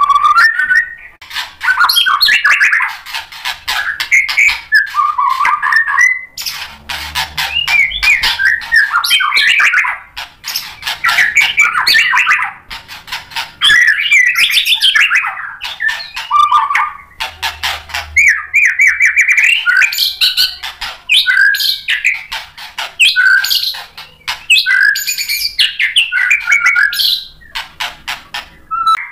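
White-rumped shama (murai batu) in full song: long runs of fast, varied whistles, trills and rattling notes with short pauses between them. This is the bird 'gacor', unloading its repertoire of mimicked phrases.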